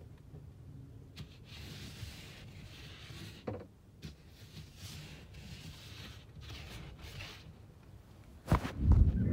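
Snow being brushed and scraped off a car's windshield, heard from inside the car as several soft, muffled swishing strokes. A loud thump comes near the end.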